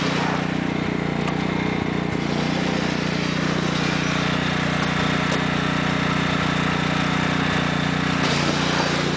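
Kohler 14 hp OHV engine of a 1993 Sears Craftsman lawn tractor running steadily while the rear tire spins on ice and frozen hail.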